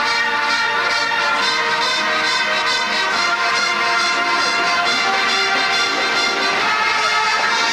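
High school marching band playing, brass leading with held notes over the ensemble.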